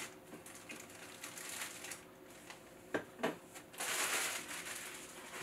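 Clear plastic wrapping bag rustling and crinkling as it is pulled off a new percolator and bunched up by hand, with two sharp clicks about three seconds in and a louder stretch of crinkling near four seconds.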